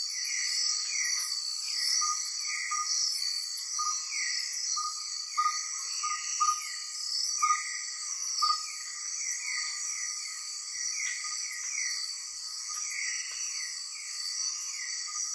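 Nocturnal rainforest insect chorus: a steady high-pitched shrill of crickets or cicadas, with short chirps repeating two to three times a second and scattered brief lower notes.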